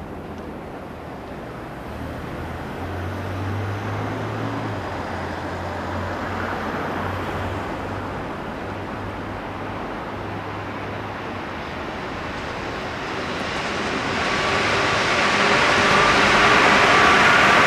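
Musashino Line electric commuter train approaching and passing close by on the tracks, its running noise growing louder over the last few seconds. A low steady hum is heard in the first half.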